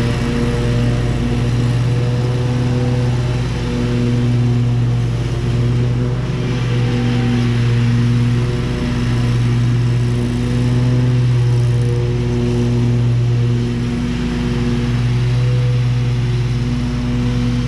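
Zero-turn riding mower's engine running steadily while mowing a lawn: an even, continuous drone that swells and eases a little as the mower turns and moves across the yard.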